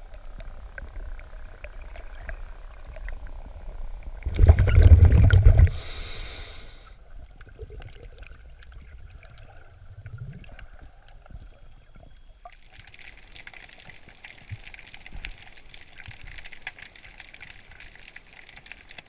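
Underwater ambience from a diving camera: a muffled water rumble, broken about four and a half seconds in by a loud rush of bubbles lasting about a second. Over the second half there is a steady hiss with scattered crackling ticks.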